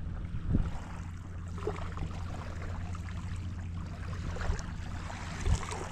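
Steady low hum of a running motor, with two short dull thumps, one about half a second in and one near the end.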